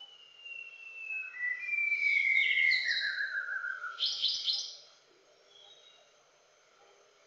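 Male white-browed shama singing: a phrase of long, overlapping whistles sliding down in pitch, then a quick burst of higher, rapid notes about four seconds in.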